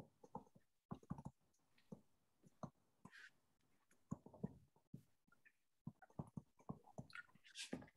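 Near silence with faint, irregular ticks and taps of a stylus on a tablet screen while a diagram is drawn, about fifteen over the several seconds.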